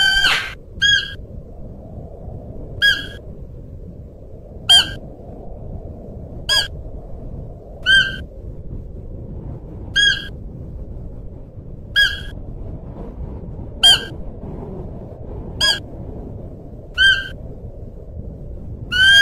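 Siberian musk deer calling: a short, high-pitched call repeated about every two seconds, some calls ending in a brief falling tail, with a longer call at the start and another near the end. A steady low background hiss runs underneath.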